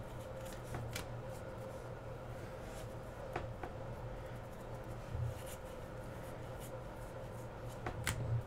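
Trading cards being handled and flipped through, faint sliding and rubbing with a few light clicks, over a steady low hum.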